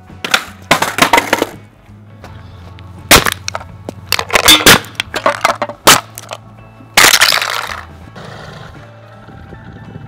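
Aluminium drink cans being stomped flat under a boot on concrete: a series of loud crunches and clatters, with background music underneath.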